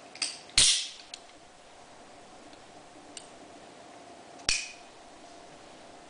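Sharp metallic clacks from a Benchmade 46 butterfly knife's steel handles being handled and closed. The two loudest come about half a second in, ringing briefly, and about four and a half seconds in, with a few lighter ticks between.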